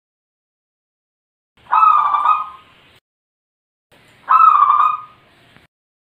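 Zebra dove (perkutut) cooing: two loud cooing phrases of about a second each, a couple of seconds apart.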